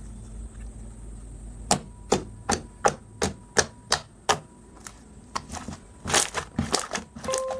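A run of eight sharp clicks at an even pace, about three a second, followed a second later by a looser cluster of noisier clicks and crackles.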